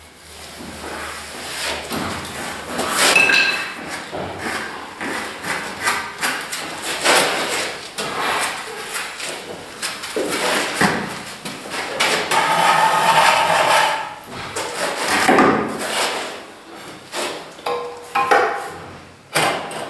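Irregular knocks, taps and scraping of a spirit level and corner straightedge being pressed, shifted and tapped against a freshly plastered wall corner while it is set plumb.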